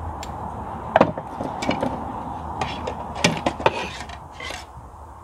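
A knife knocking and scraping on a wooden cutting board while duck breast is sliced: scattered sharp knocks and clicks, then short rasping knife strokes across the board about four seconds in.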